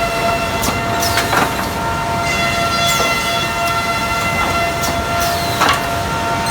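QMB 823GH high-speed eight-spindle four-sided moulder running, its cutter spindles giving a steady, loud high-pitched whine. A few short falling swooshes cut through it every second or two.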